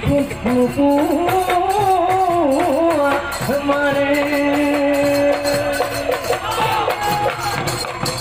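Live Assamese Bihu folk music: a wavering, ornamented melody with one long held note in the middle, over fast, steady percussion.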